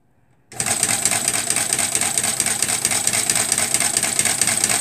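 Small electric sewing machine's motor starting abruptly about half a second in and running steadily with a rapid clatter and a high whine, winding thread onto a makeshift bobbin, a stick standing in for the missing bobbin.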